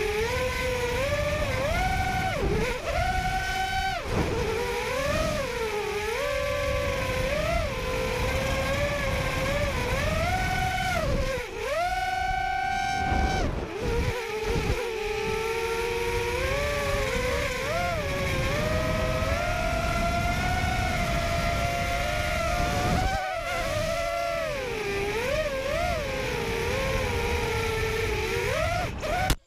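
Quadcopter motors and propellers whining, the pitch constantly rising and falling as the throttle changes, heard from the drone's onboard camera. There is a low rushing noise underneath, and the whine drops out briefly twice around the middle.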